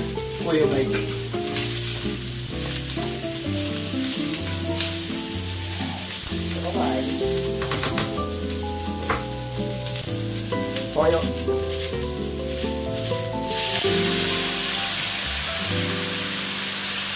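Pork belly pieces with onions and scallions sizzling in a hot wok, stirred with a spatula that scrapes the pan now and then. About three-quarters of the way through, the frying hiss jumps louder as soy sauce goes in. Background music plays underneath.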